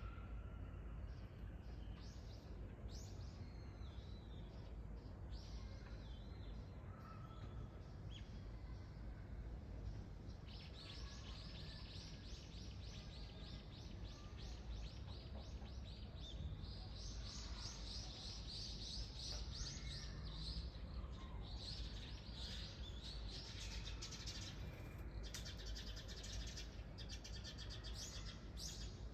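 Small birds chirping: a few scattered calls at first, then, from about ten seconds in, long runs of rapid high-pitched notes. A steady low background rumble sits underneath.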